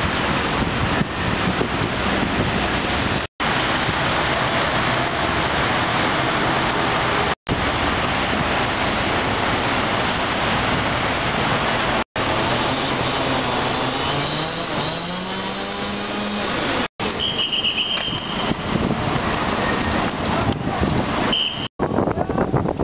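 Loud, steady storm wind and road traffic noise, broken by several brief silent gaps where the sound cuts. About two thirds of the way through, a vehicle's engine rises in pitch as it speeds up, followed by a short high tone.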